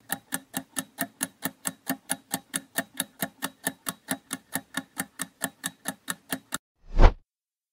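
Quiz countdown-timer sound effect: rapid, even clock-like ticking, about four to five ticks a second, that stops about six and a half seconds in. A single short, louder low thump follows, marking the answer reveal.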